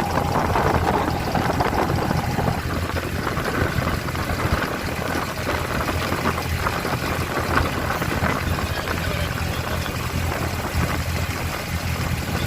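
An abra's diesel engine running steadily, with a constant low hum under a wash of engine and water noise.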